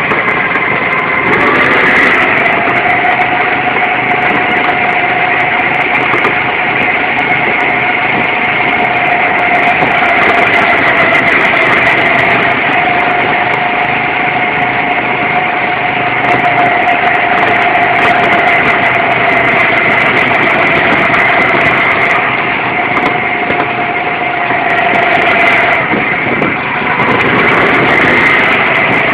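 Go-kart engine running steadily on board a moving kart, its note holding one pitch, then dropping away briefly near the end before picking up again.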